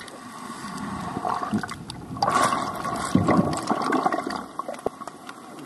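Factory production-line machinery running: a steady rushing hiss with a constant hum, scattered clicks and knocks, and a louder stretch about two seconds in.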